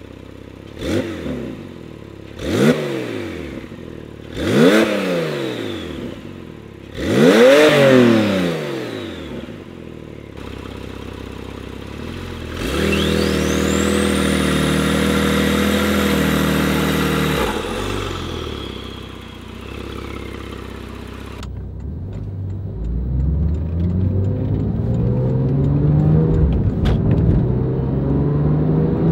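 Exhaust of a 2017 Porsche 911 Carrera S twin-turbo flat-six running through Fabspeed high-flow downpipes on a custom tune. It is blipped four times, then holds a steady note for about five seconds with a thin high whine climbing over it, and over the last several seconds it builds in pitch and loudness as the car accelerates.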